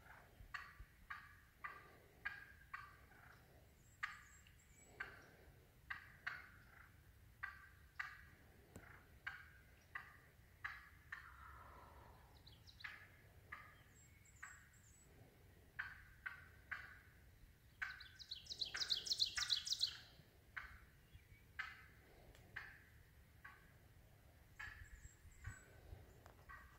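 Wild turkey hen calling angrily: a long run of sharp single notes, about one or two a second, with a louder rapid flurry of notes about 18 seconds in.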